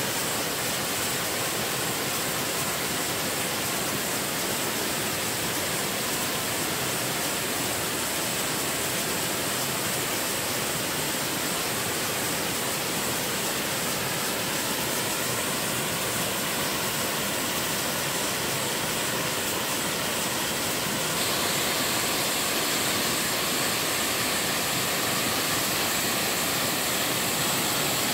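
Waterfall on a mountain stream, its water pouring steadily. It turns slightly louder and hissier about three-quarters of the way in.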